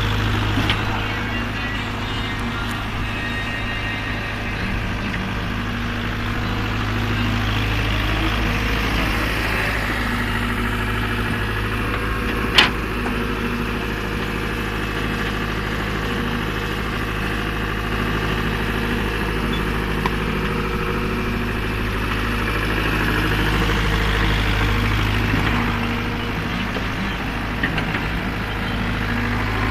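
Diesel engine running steadily at idle, with one sharp knock about halfway through.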